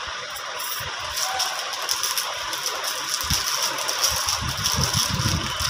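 Small items clinking and rattling as a box of jewellery and hair accessories is rummaged through, over a steady background hiss. The rattling picks up about a second in and gets busier near the end.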